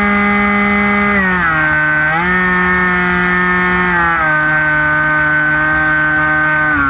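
Electric motor and propeller of a Hobbyking Bixler model glider, heard from a camera on the aircraft, running with a steady whine over wind rush. The pitch drops slightly about a second in, rises back about two seconds in, and drops again about four seconds in as the throttle is eased.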